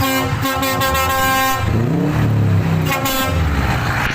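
Scania V8 lorry's air horns blasting in several short toots. About halfway through an engine revs up and back down, then the horns sound once more briefly.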